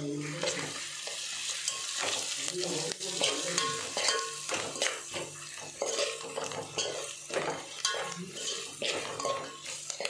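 Metal ladle stirring onions and bay leaves frying in oil in a metal pot: a steady sizzle with repeated scrapes and clinks of the ladle against the pot.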